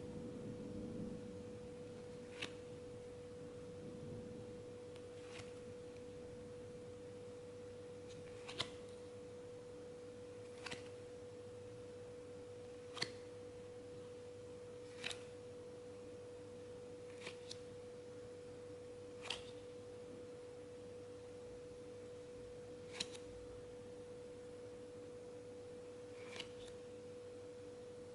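Trading cards being handled one at a time, each giving a short sharp tap or click about every two to three seconds, over a faint steady mid-pitched tone.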